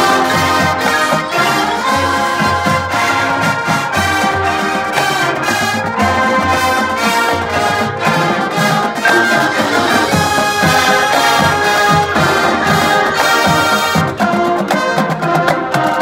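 A marching band playing its field show: massed brass sounding full chords and melody over drums and front-ensemble mallet percussion.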